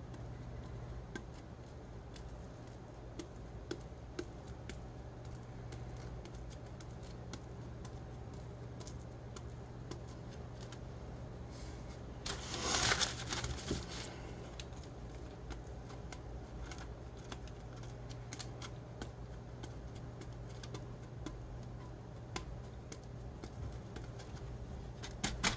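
Faint crunching and crackling of chunky glitter on a tumbler as it is pressed down by hand under a piece of plastic, with a louder rustling burst about halfway through and a brief one near the end. A steady low hum runs underneath.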